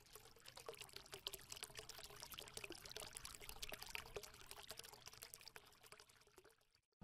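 Faint crackling, trickling noise made of many tiny clicks, close to silence, stopping shortly before the end.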